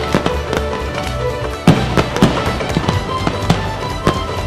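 Aerial fireworks going off in quick succession, sharp bangs and crackles with a loud report about a second and a half in, over music playing throughout.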